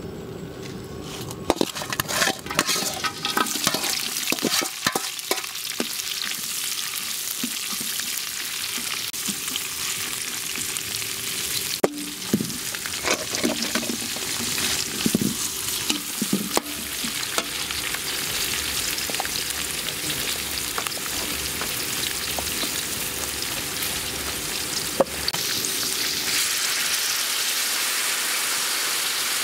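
Chopped dried red chilies, onion and lemongrass frying in hot oil in a large aluminium wok, stirred with a metal spatula. Clatters and scrapes of the spatula on the pan come thickly in the first few seconds. Then the sizzle settles into a steady hiss with a few sharp clinks and grows louder near the end.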